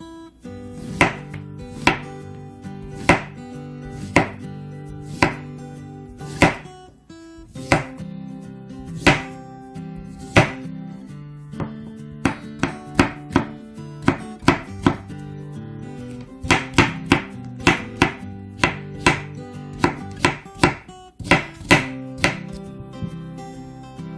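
Chef's knife slicing zucchini on a wooden cutting board: a sharp knock of the blade on the board with each cut, about one a second at first and quicker from about two-thirds of the way through. Acoustic guitar background music plays underneath.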